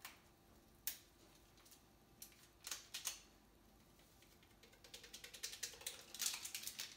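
Faint small clicks and taps, then a quick run of light ticks and scrapes over the last couple of seconds: a spoon scraping instant espresso powder out of a small container and tapping it into the metal mixing bowl of a Thermomix.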